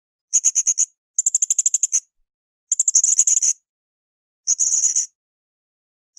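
Blue-crowned hanging parrot (srindit) calling in short bursts of rapid, very high-pitched chattering notes. There are four bursts, each under a second long, with brief silent gaps between them.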